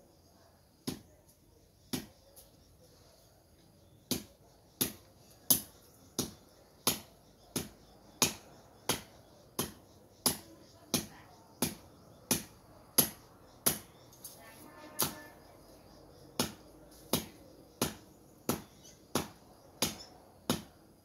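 Repeated chopping strikes of a blade hacking at undergrowth at ground level. Two single strikes come first, then a steady run of about three strikes every two seconds begins about four seconds in.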